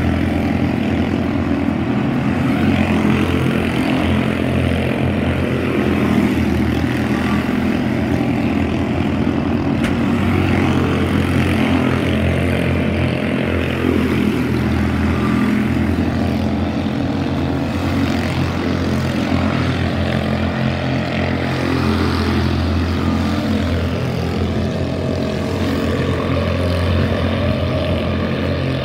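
Several quarter midget race cars' small single-cylinder engines running at racing speed. The buzz is steady and loud, its pitch rising and falling as the cars lap and pass close by.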